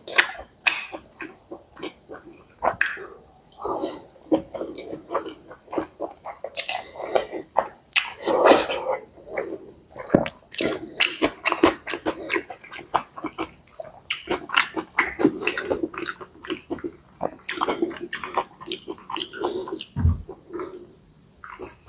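Close-miked chewing of pad see ew, stir-fried rice noodles with pork and Chinese kale: a steady run of irregular, wet, smacking mouth clicks.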